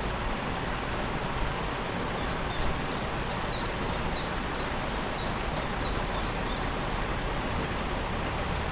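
Waterfall rushing steadily. A small bird sings over it from about three seconds in, a quick run of a dozen short, high, down-slurred notes, about three a second.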